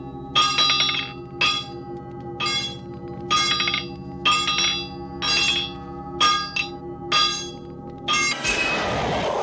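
Hammer blows on an anvil, about one a second, each strike ringing on with bright metallic overtones over a steady droning tone. About eight seconds in, the strikes give way to a loud rushing hiss.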